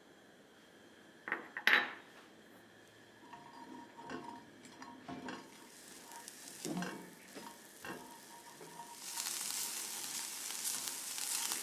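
A utensil clinks sharply twice against a stainless steel pot, then scrapes and taps as it stirs. About nine seconds in, chopped onion and garlic begin a steady sizzle as they sauté in chicken fat.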